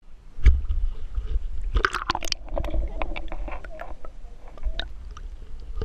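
Sea water sloshing and gurgling around an action camera dipped in and out of shallow water, heard muffled over a constant low rumble, with a cluster of splashes and clicks about two seconds in.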